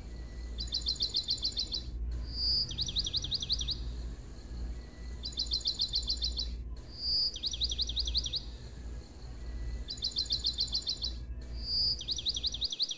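Looped recording of a songbird: a quick run of high chirps, a short whistle, then a falling trill, repeated three times about every four and a half seconds. A low steady hum runs underneath.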